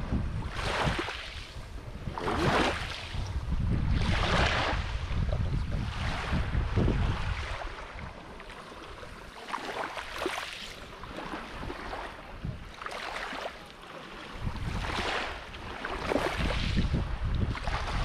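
Wind rumbling on the microphone, with water sloshing and splashing around the legs of someone wading in shallow surf every second or two. The wind rumble drops away in the middle and comes back near the end.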